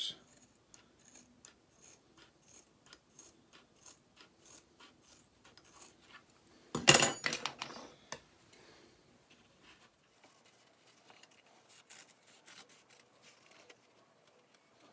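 Ordinary household scissors snipping through scrap leather, a run of small crisp clicks as the blades close. About seven seconds in there is a single louder burst of handling noise.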